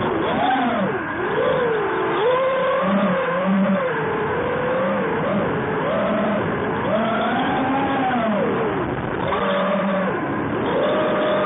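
QAV250 racing quadcopter's brushless motors and propellers whining, the pitch rising and falling constantly as the throttle changes through banks and climbs.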